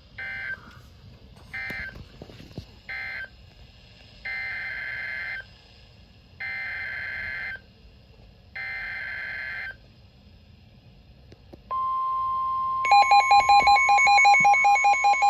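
Emergency Alert System SAME data bursts: three short bursts of screechy, warbling digital tones closing the previous warning, then three longer bursts heading the next alert. About twelve seconds in, a steady NOAA Weather Radio alert tone starts. A second later a louder, rapidly pulsing alarm tone joins it, as a second alert overlaps.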